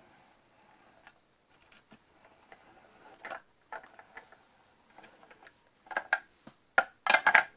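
Recycled-plastic Green Toys fire truck and figures being handled by hand: light plastic clicks and taps, with a louder run of clatters near the end.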